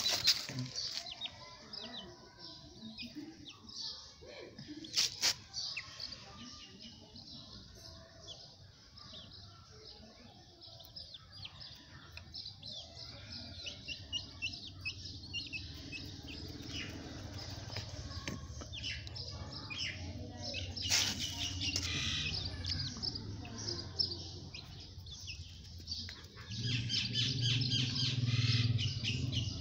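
Young Aseel chicks peeping and chirping over and over in short high calls. A low hum builds in the background and is loudest near the end, and there are a few sharp clicks.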